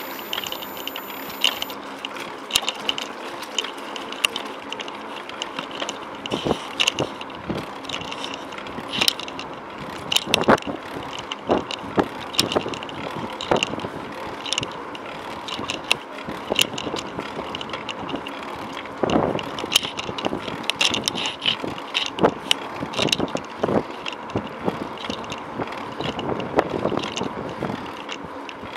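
Bicycle rolling along a paved path: a steady tyre-and-road noise with frequent irregular rattles and clicks.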